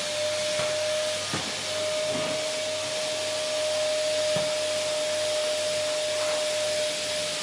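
Vacuum cleaner running steadily at full speed: a single steady motor whine over a strong rushing hiss of air, with a few faint knocks.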